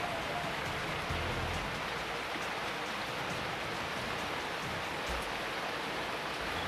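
Steady, even rushing noise like rain falling.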